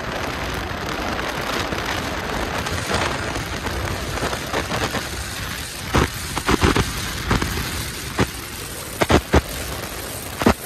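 Wind rushing over the microphone of a fast-moving motorcycle: a steady noisy hiss. From about six seconds in, sharp buffeting pops break through it.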